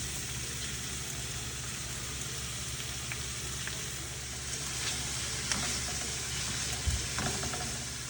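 Food sizzling steadily in a hot pan as it is stirred, with a few short clicks of the utensil against the pan in the second half.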